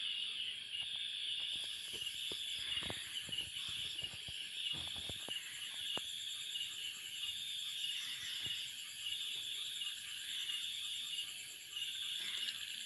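Chorus of insects in roadside hill forest: a high-pitched buzz that pulses on and off about once a second, over a steadier, higher hiss. A few faint clicks come through now and then.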